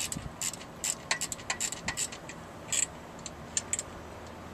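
A string of short, sharp metallic clicks at an uneven pace, thinning out in the second half, as a 9/16 wrench tightens the load binder on the chain that holds the wheel-loader platform to the car.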